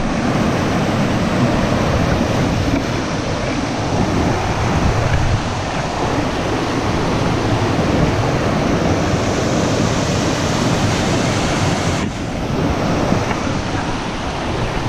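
A small river waterfall and rapids rushing over rock ledges: a loud, steady rush of water, dipping briefly about twelve seconds in.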